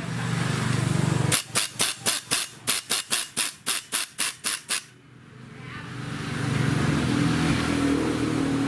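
Pneumatic impact screwdriver working a screw on a chainsaw's engine: a steady hum, then a run of about fourteen sharp hammering knocks, roughly four a second, as it strains at a tight screw that may snap. After a short lull a steady whirring builds up.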